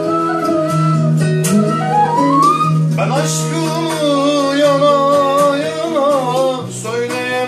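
Turkish folk tune played on an electronic arranger keyboard, which holds a steady bass note and chords, with a long wooden end-blown flute carrying a wavering melody from about two seconds in.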